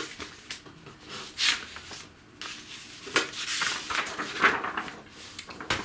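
Paper rustling as a thick booklet is handled and its pages are turned, in several short rustles and taps.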